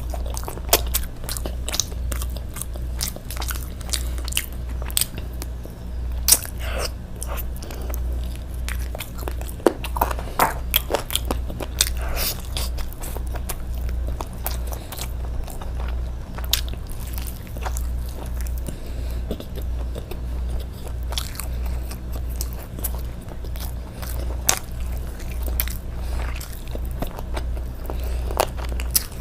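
A person chewing and biting food close to the microphone, with many sharp, irregular mouth clicks and smacks, over a low pulsing hum.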